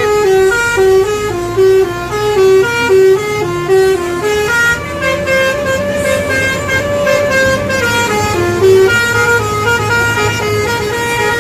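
Bus's musical multi-tone 'telolet' horn playing a stepped tune of many short notes for the whole stretch, over the low rumble of the bus.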